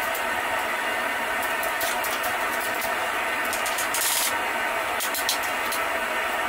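Clinks and a scrape of steel on steel as a hot bar, pressed into a U in a fly-press collar jig, is worked free of the jig blocks and lifted out with tongs, the longest and loudest scrape about four seconds in. Under it, a steady mechanical hum.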